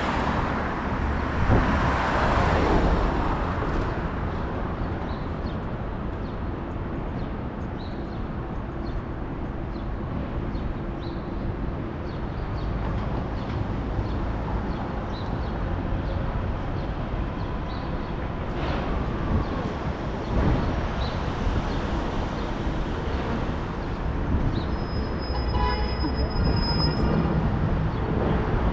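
City street traffic: vehicles running past steadily, with a louder pass in the first few seconds. Near the end comes a brief high-pitched squeal with a quick fluttering repeat.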